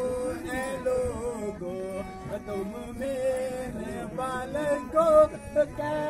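Music with a male voice singing a wavering melody over instrumental accompaniment.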